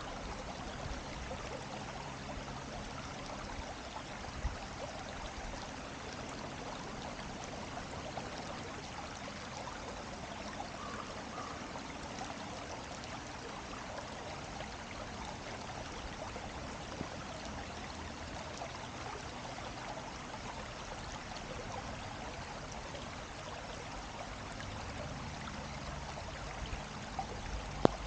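Steady rush of flowing stream water, even and unbroken. A single sharp click near the end.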